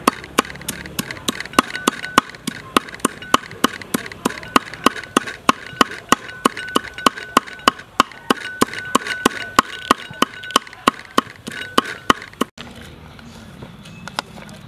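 Large kitchen knife chopping on a wooden chopping board: a steady run of sharp knocks, about three or four a second, with a faint ring between strokes. The chopping stops near the end.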